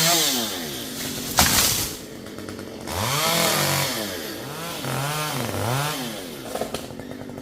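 Two-stroke chainsaw engine revving up and down several times, with a single sharp crack about one and a half seconds in.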